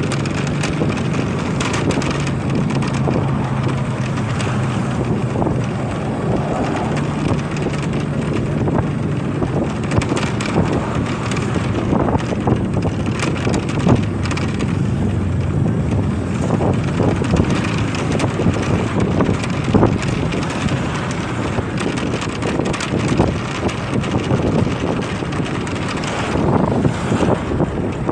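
Motorcycle engine running while riding, with wind buffeting the microphone. The engine's steady tone is clearest in the first several seconds, then the wind gusts take over.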